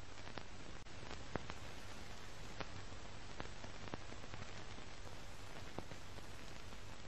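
Steady static hiss with a faint low hum and scattered clicks and pops, about one a second, like the crackle of an old film or record; the sharpest click comes a little over a second in.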